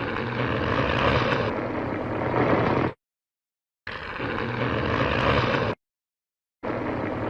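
Heisei-era Godzilla film sound effects played back to back: three separate noisy, rumbling clips with a low steady hum underneath. Each starts and cuts off abruptly, with dead silence between them.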